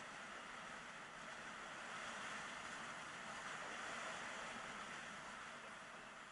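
Steady rushing hiss of skis running fast on groomed snow, mixed with air rushing past the camera at about 36 mph, a little louder in the middle.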